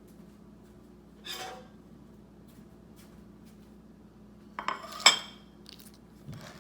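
Dishes and cutlery clinking: a short scrape about a second in, then a quick cluster of clinks about five seconds in, one of them sharp and loud.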